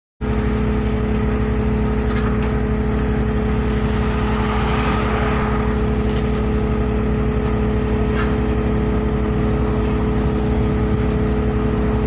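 Wheeled excavator's diesel engine running with a steady drone while its bucket pushes sand, with a few light knocks along the way.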